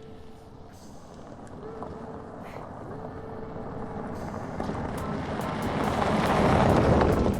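A car driving toward and past the microphone: its tyre and engine noise swells steadily to a peak near the end, then cuts off sharply. Over the first four seconds, a short steady tone repeats four times, about every second and a half.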